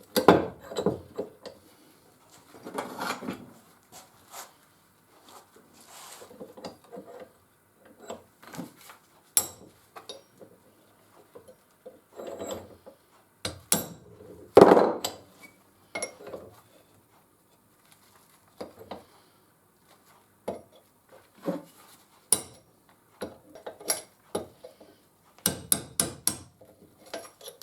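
Irregular metal-on-metal taps and knocks as a headless nail is driven in and bent over to serve as a pin in a Record No. 3 bench vice. The loudest knock comes about halfway through.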